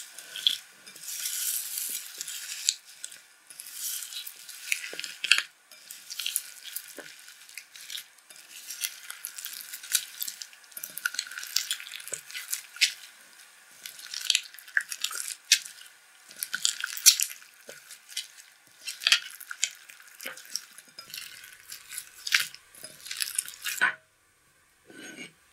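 Pink slime with white foam beads mixed in (floam) being kneaded and squeezed by hand in a glass bowl: irregular squishing, crackling and popping. The sound drops out briefly near the end.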